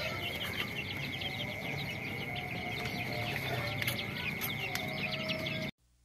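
Young chickens peeping and clucking softly while pecking at mash from a feed bowl: many quick falling chirps over a steady high tone. The sound cuts off suddenly near the end.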